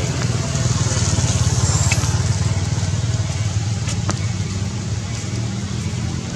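A motor engine running steadily, a low pulsing rumble, with one sharp click about four seconds in.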